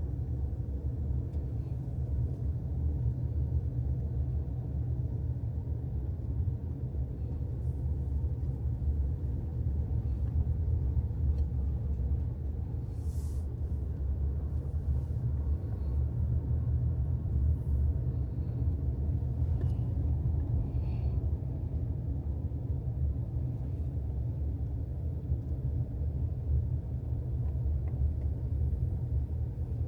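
A steady low rumble, with a few faint ticks about 13 and 18 seconds in.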